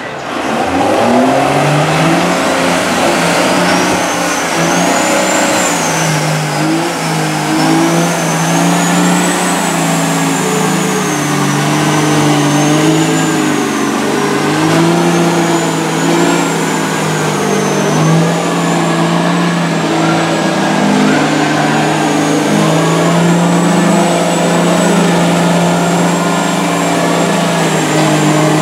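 Big diesel engines of monster mud trucks running hard under load as their lugged tyres churn through deep mud, the engine note rising and falling, with a thin high whine wavering above it.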